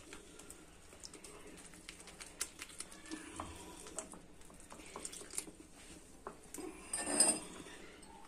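Steel spoon stirring flour and water into a thin batter in a small glass bowl: light, irregular clinks and scrapes against the glass, with one short louder sound about seven seconds in.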